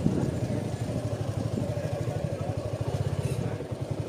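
Motorcycle engine running at a steady speed, with a fast, even low exhaust beat.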